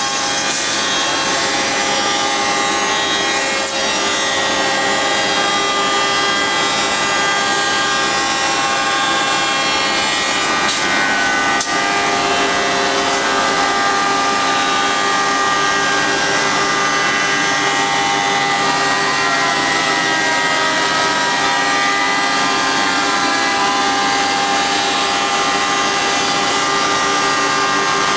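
HOMAG CNC woodworking machining centre routing a wooden panel: a steady, loud spindle whine with several high tones over cutting and rushing noise, and a single sharp click about twelve seconds in.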